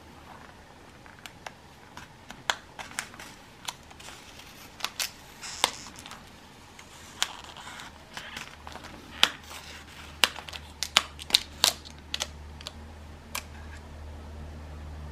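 Clear plastic shrink wrap being slit and peeled off a metal pellet tin: irregular sharp crackles and clicks, several of them loud, with a short rustle about five seconds in.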